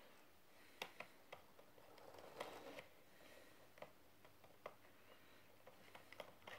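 Near silence with scattered faint clicks and a brief rustle about two seconds in, the sound of a phone camera and things on a table being handled; no motor sound is heard.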